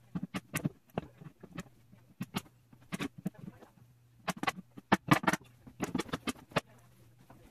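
Rapid, irregular knocks and clicks of wooden cabinet panels being handled and pressed into place on a speaker cabinet, sped up by time compression, over a steady low hum.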